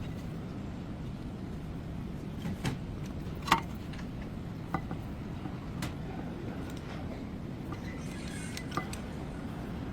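Scattered light metallic clinks of tools and brake parts being handled, about five of them, the loudest about three and a half seconds in, over a steady low hum.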